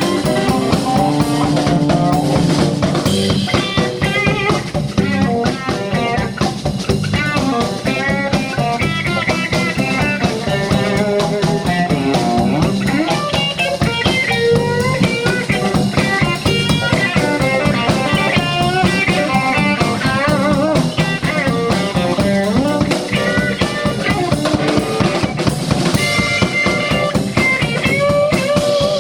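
Live blues band playing an instrumental passage: guitar lines with bending notes over a steady drum kit and bass groove.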